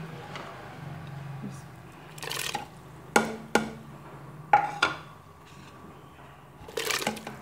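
Chopped tomatoes tipped into water in an aluminium pressure cooker, with a couple of splashy bursts and a few sharp, ringing knocks of a dish or utensil against the pot.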